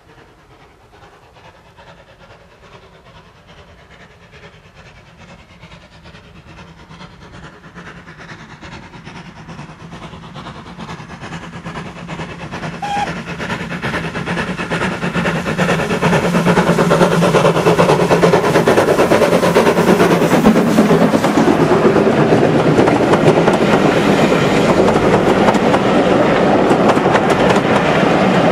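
An LNER N7 0-6-2 tank steam locomotive approaches with its exhaust beats growing steadily louder over about fifteen seconds. It then passes close by with its train of carriages rumbling past on the rails.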